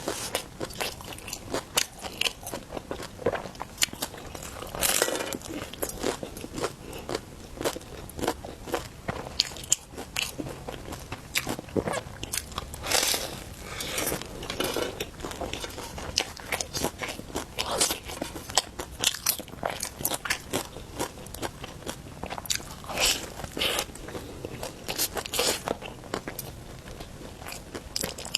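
Close-miked biting and chewing of roujiamo: the flatbread crust crunches and crackles with each bite, and several louder bites come through the chewing. The bread is only mildly crisp, having lost some of its crunch since it was made.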